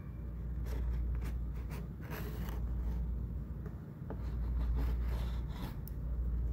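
Small scissors scraping and snipping through the paper seal stickers on a cardboard smartphone box, several short strokes, over a steady low rumble.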